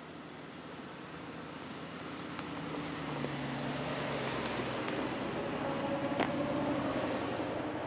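Aston Martin DBX SUV driving slowly along a stony dirt track, its engine running steadily and growing louder as it approaches and passes close by. A couple of sharp clicks come from the tyres on the stones about five and six seconds in.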